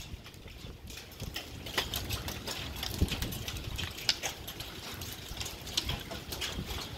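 Hail falling: a dense, irregular patter of sharp clicks and taps as quarter-size hailstones strike hard surfaces.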